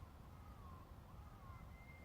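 Near silence with faint, wavering bird calls; near the end a Japanese bush warbler starts the long steady opening whistle of its song.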